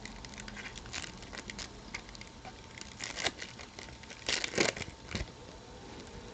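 A trading card pack's wrapper being crinkled and torn open and the cards handled: scattered crackles with louder clusters about three seconds in and again around four and a half seconds.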